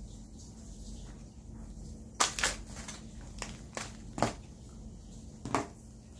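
Sharp clicks and knocks from two desktop phone stands being handled and shifted on a tabletop: a close pair of loud clicks about two seconds in, then several single ones spread through the rest.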